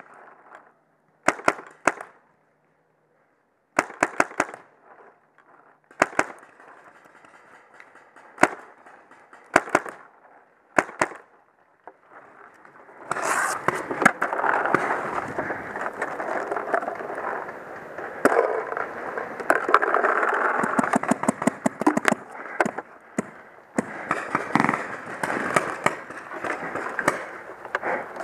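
Paintball marker firing short bursts of two to four shots, with pauses of a second or two between bursts. About halfway through, a dense, continuous clattering rattle of rapid clicks and knocks takes over and runs on, louder than the shots.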